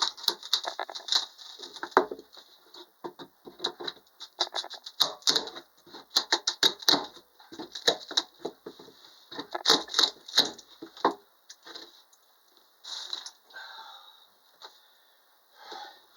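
Rapid, irregular clicks and knocks, dense for the first eleven seconds or so, then sparser and fainter.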